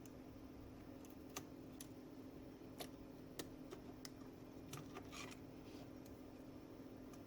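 Faint scattered clicks and taps, about six of them, over a steady low hum in a quiet room.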